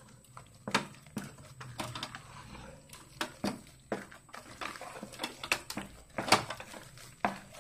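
A spatula stirring and mashing thick rice-flour dough in an aluminium pressure cooker pot, knocking and scraping against the pot in irregular sharp strikes, a few of them louder. This is the stage where rice flour is worked into boiling water to make idiyappam dough.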